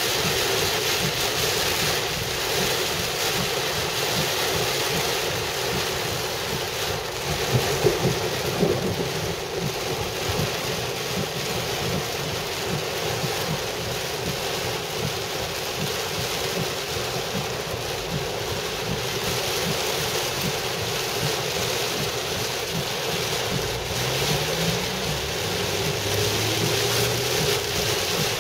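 Heavy rain pounding on a car's roof and windshield, heard from inside the cabin, a steady rush of noise with a few louder knocks about eight seconds in. Near the end an engine note rises briefly as the car speeds up.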